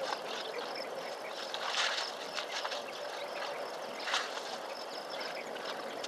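Insects chirping steadily in a natural outdoor soundscape, with two short rushing bursts about two and four seconds in.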